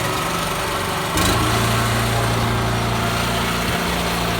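Small gas engine on a portable concrete mixer, just started and running. About a second in there is a click and its note settles into a steadier, slightly louder hum.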